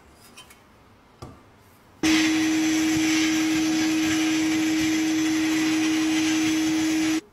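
Sandblasting gun in a blast cabinet blasting the rust off a steel lock plate: a loud, steady hiss of compressed air and abrasive with a steady hum underneath, starting abruptly about two seconds in and cutting off just before the end. A light knock of the lock plate being handled comes about a second in.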